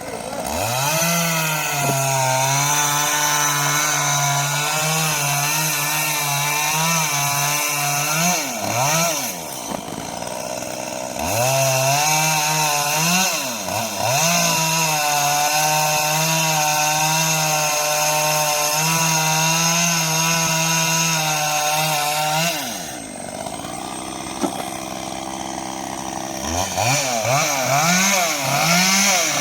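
Two-stroke chainsaw cutting through coconut palm wood at full throttle in two long runs, of about eight and eleven seconds, with the engine sagging toward idle between them. About three-quarters of the way through it drops to idle, then blips the throttle up and down again near the end.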